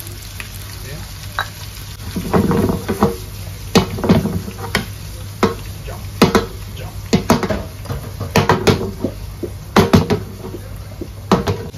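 Diced bell peppers and mushrooms sizzling in butter in a nonstick frying pan, with repeated sharp knocks and clatters as the pan is shaken and tossed on the gas stove's grate.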